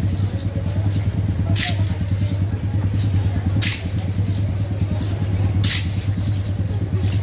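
Sharp lashing strikes come at a steady beat of about one every two seconds, typical of penitent flagellants whipping their own backs, with fainter strikes in between. Under them an engine hums steadily.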